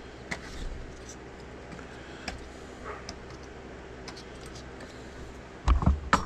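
Faint, scattered clicks of small pins being pushed through thin wooden planks into a model ship hull's frames with a hand pin pusher, over a steady low hum. Near the end come a few loud low thumps.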